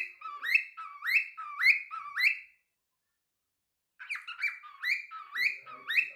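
Young cockatiel whistling its song: a run of repeated notes, each sliding sharply upward, about two a second. It stops about two and a half seconds in and starts the same phrase again about a second and a half later.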